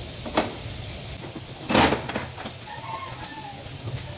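Workshop work sounds: a sharp click, then a short hissing burst of about a third of a second, followed by a few light knocks.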